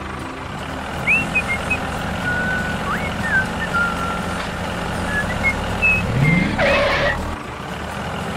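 Tractor engine sound running steadily, with short high chirps scattered over it and a brief rising sweep with a burst about six and a half seconds in.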